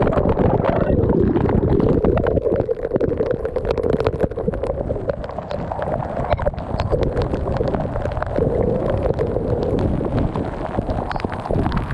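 Water rushing and gurgling close to the microphone, a steady loud wash with many small clicks and pops through it.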